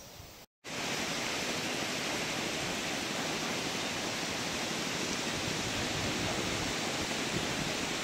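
Steady rushing of a wide, fast-flowing river running high over rapids, an even hiss without a break that starts after a brief gap about half a second in.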